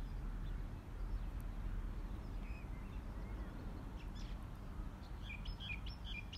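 Outdoor ambience: a steady low rumble with birds chirping, a few scattered chirps and then a quick run of short chirps near the end.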